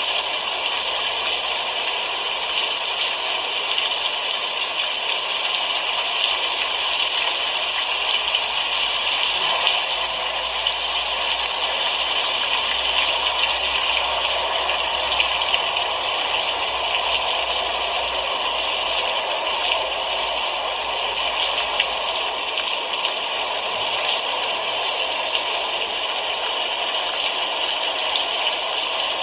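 Steady rain: a dense, even patter of drops.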